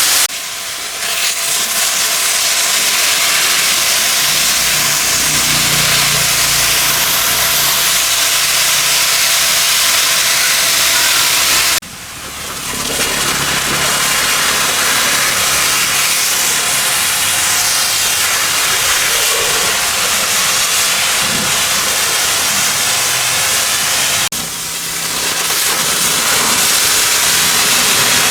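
High-pressure washer spraying in a steady, loud hiss over a low machine hum. The spray stops briefly about 12 seconds in and again about 24 seconds in, building back up over a second or so each time.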